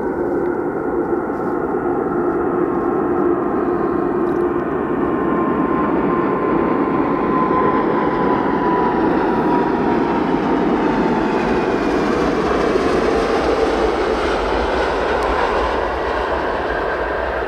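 Jet airliner engines running loud and steady as the aircraft passes, with a whining tone that slowly falls in pitch over the rushing noise.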